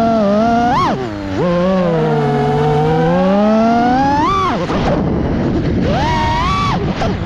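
FPV freestyle quadcopter's motors and propellers whining, the pitch swooping up and down with the throttle. There is a quick punch about a second in, then a long dip and climb to a peak a little after 4 s. The whine falls away to a rough rush for about a second, then punches up again around 6 s.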